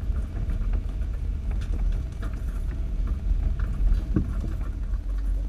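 Off-road vehicle crawling along a rough dirt trail: a steady low rumble with scattered knocks and rattles, and one heavier knock about four seconds in.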